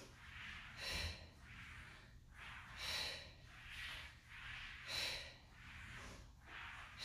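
A woman breathing hard and rhythmically while holding a plank: a strong, hissy exhale about every two seconds, with a softer breath between each.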